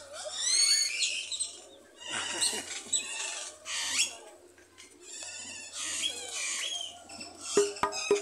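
Birds in an aviary calling, with many short chirps that rise and fall, several birds overlapping. Near the end, music with a sharp, evenly spaced beat comes in over them.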